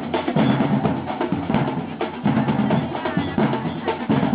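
Music led by drums and percussion, a busy run of closely spaced strikes.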